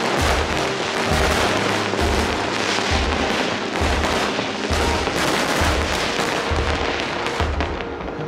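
Fireworks display bursting and crackling, a dense run of bangs and pops, mixed with music that has a steady bass beat about once a second.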